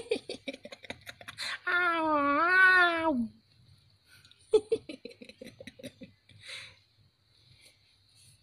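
Puppy whining: one long whine that rises and falls, then slides down at its end, about two seconds in. Runs of short, quick pulses come before and after it.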